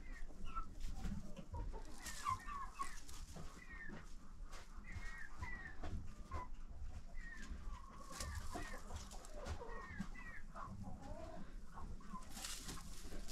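Poultry clucking and chirping in short calls scattered through, with a brief rustle near the end.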